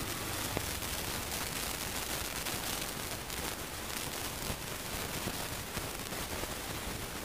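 Steady rushing noise from a Honda Fan 160 motorcycle rolling slowly: wind on the microphone and road noise, with no clear engine note standing out.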